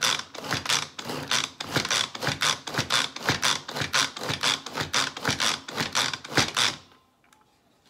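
Pampered Chef manual food processor worked with quick repeated pulls of its cord, each pull spinning the blades through onion chunks, about three to four strokes a second. It stops about seven seconds in.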